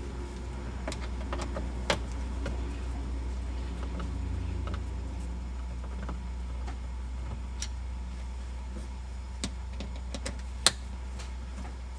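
Scattered light clicks and taps as a hand Phillips screwdriver backs out the small screws around the shift boot of a Camaro's manual shifter, over a steady low hum.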